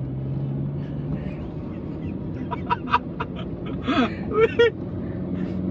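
Honda car's engine and tyre noise heard from inside the cabin while driving along, a steady low drone. Short voice sounds come between about two and five seconds in.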